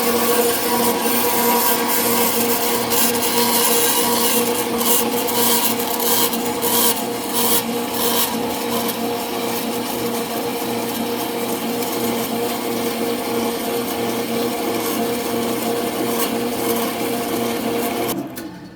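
Asada Beaver 6 band saw running with a steady motor hum, its blade rasping as it cuts, rougher for a few seconds in the middle. It has a freshly fitted blade, rubber tires and bearings. The saw stops abruptly just before the end.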